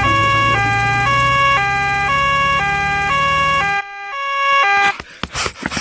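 Cartoon two-tone emergency siren, a high and a low note alternating about every half second, over a low engine hum. The hum stops near four seconds in and the siren cuts off about a second later, followed by a few sharp clicks.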